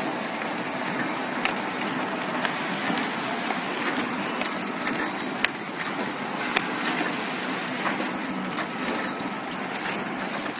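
Eccopac HFP500+SE flow-wrapping machine with indexing conveyor running: a steady mechanical hiss and clatter with a few sharp clicks scattered through it.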